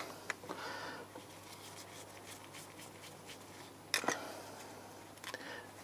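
Faint clicks and light scraping of a thin metal pick working in a small passage of a motorcycle rear brake master cylinder, clearing it, with a sharper click about four seconds in.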